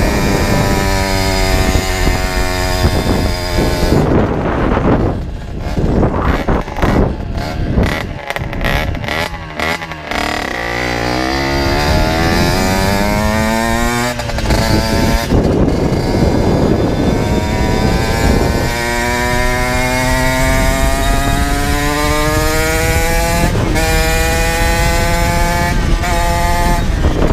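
Generic Trigger SM 50's 50cc two-stroke engine (Minarelli AM6) through an aftermarket Turbokit exhaust, heard on board while riding. It revs up through the gears in rising sweeps of pitch. About four seconds in it breaks up into choppy, uneven bursts off the throttle, then pulls again in long rising runs to the end.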